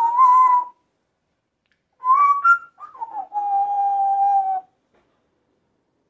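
African grey parrot whistling: a short whistled note, then after a pause a few quick rising notes running into one long held note that sags slightly in pitch before it stops.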